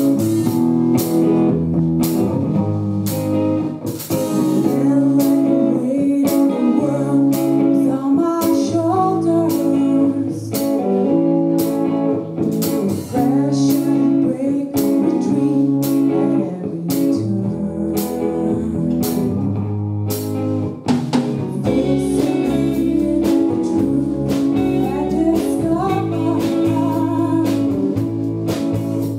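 Live rock band playing: electric guitars and a drum kit keeping a steady beat, with a singer over them. A deeper bass comes in about two-thirds of the way through.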